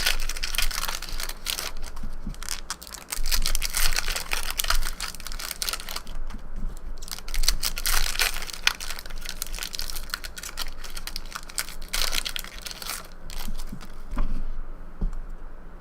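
Trading card pack wrappers being torn open and crinkled, a dense run of crackling and rustling that thins out near the end.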